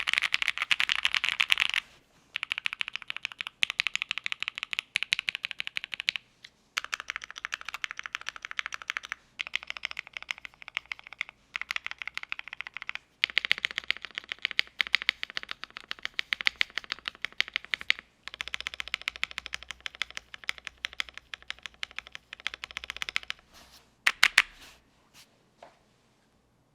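Typing on a mechanical keyboard with Gateron Box Ink Black linear switches in a polycarbonate plate, under GMK keycaps. Fast runs of keystrokes come in bursts with short pauses, ending in a few last strokes near the end.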